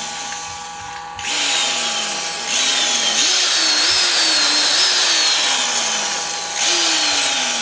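Porter Cable 2610 corded electric drill run free in repeated trigger pulls, the motor whine jumping up in pitch and then sagging as it winds down, four or five times over.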